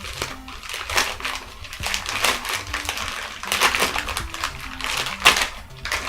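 A mail package being torn open and its packaging crinkled by hand, in a series of rustling, tearing bursts. A light chiptune music track plays underneath.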